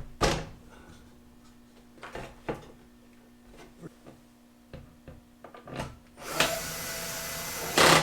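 Parts and tools being handled on a workbench: several knocks and clicks, then a steady hiss lasting about a second and a half near the end.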